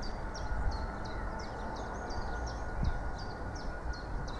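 A bird repeating a short high note that slides downward, about three times a second, over the low rumble of a distant approaching train.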